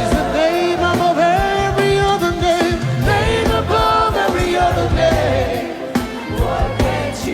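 Live gospel worship music: singing over a band with drums, with a steady beat.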